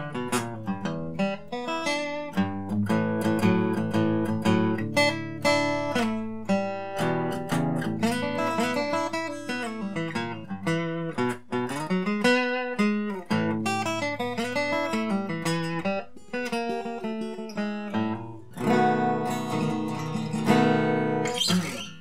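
Seagull S6 Original acoustic guitar, a cedar-top dreadnought with cherry back and sides, played solo: a flowing run of picked notes and chords, with fuller ringing chords near the end.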